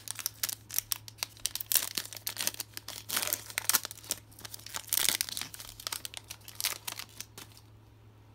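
Foil wrapper of a Donruss Optic basketball card pack being torn open and crinkled in the hands: a dense run of crackles and rips that stops about seven and a half seconds in.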